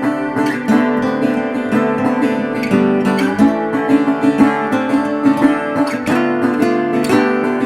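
Background music led by a plucked and strummed acoustic guitar, playing a busy run of notes at a steady level.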